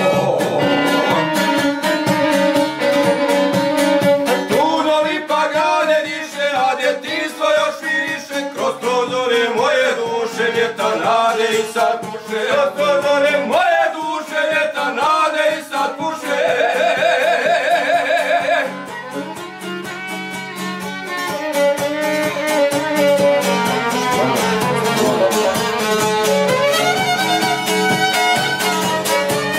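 Šargija and violin playing a Posavina folk tune: the šargija is strummed in a quick, steady rhythm while the violin carries the melody. A little past halfway the violin holds a high, wavering note for about two seconds, then the playing eases briefly.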